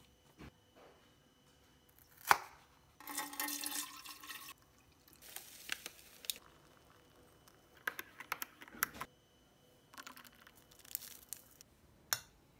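Hands making an instant cappuccino in a ceramic mug: a sachet tearing open, liquid or powder pouring into the mug, and scattered small clicks and taps from the carton and mug, with a sharp click a few seconds in and another near the end.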